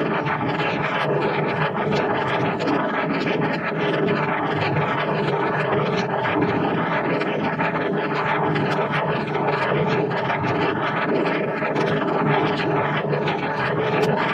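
Heavily processed, distorted sound effect: a steady, dense wash of noise and held tones with a slow, sweeping waver.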